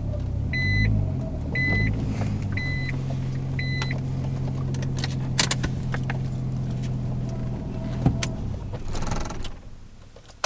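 Nissan Stagea's turbocharged straight-six idling while a reversing beeper beeps about once a second, stopping about 4 seconds in. A few sharp clicks follow, and the engine is switched off near the end.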